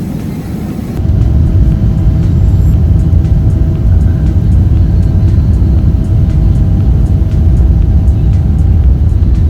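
Loud, steady low rumble of a vehicle heard from inside it, starting abruptly about a second in, with a faint steady tone above it.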